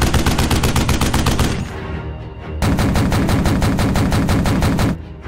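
Machine-gun fire, rapid shots at about ten a second: one long burst, a break of about a second, then a second long burst that cuts off near the end.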